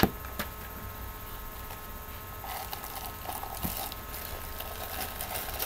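Clear plastic wrapping around a glass shade liner crinkling and rustling as it is handled, starting about halfway through.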